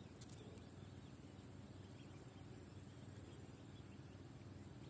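Near silence: faint steady outdoor background hiss and low hum, with a faint click just after the start.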